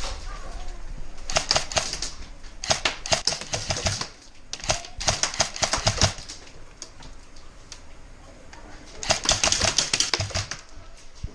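Airsoft guns firing in four rapid bursts of sharp clicking shots, with short pauses between the bursts.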